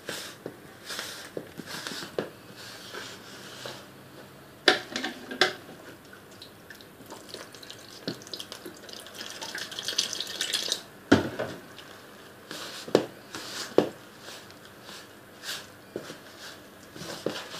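Water poured a little at a time into atta (whole-wheat flour) and stirred in with a spoon, with scattered sharp clicks of the spoon against the bowl.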